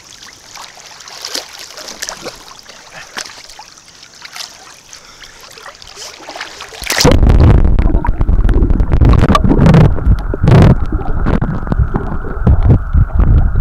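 Sea water splashing and lapping around a swimming dog paddling close by. About seven seconds in, the microphone goes under the surface and the sound turns abruptly into a loud, muffled underwater rumble and gurgle.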